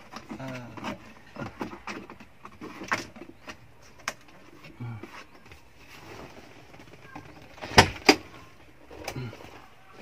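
Handling noise of a car's rubber door seal being pulled off the pillar: scattered clicks and rustles, with two sharp knocks close together about eight seconds in.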